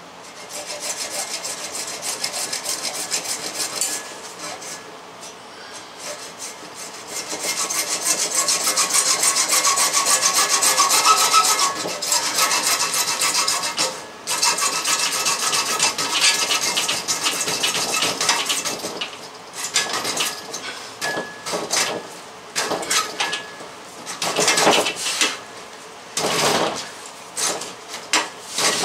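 Hacksaw cutting through a white PVC water pipe in rapid back-and-forth strokes, with short pauses and a louder, steadier run of sawing in the middle.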